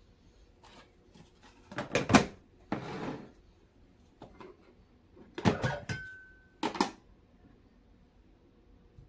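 Dishes and kitchenware being handled: a few clusters of knocks and clinks, a short scrape around the middle, and a brief ringing tone after a clink near the end.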